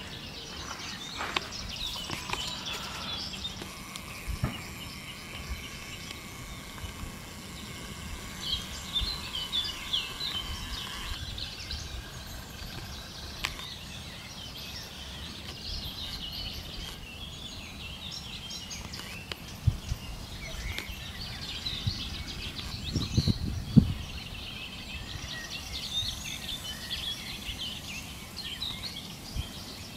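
Small birds singing and chirping in the trees, over a steady outdoor background hiss. A few low thuds sound about a third of the way in and again near the end.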